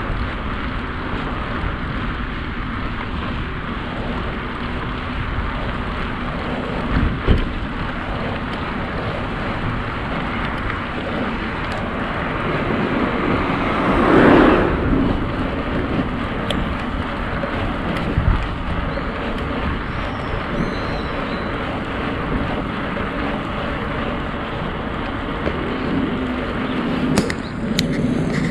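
Steady wind and road noise of a bicycle ride, with a car driving past about halfway through, swelling and fading over a couple of seconds. A few short knocks from the bike come here and there.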